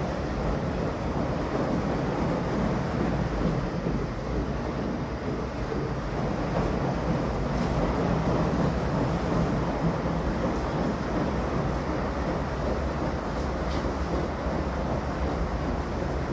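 Three washing machines running together through a tub-cleaning cycle: a steady mechanical rumble and churning noise that goes on without a break.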